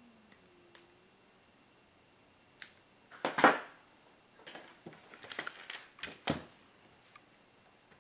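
Hand tools, needle-nose pliers and a screwdriver, set down on a workbench with a short clatter about three seconds in. Light clicks and rattles of small RC car parts being handled follow, with one sharp click a little after six seconds.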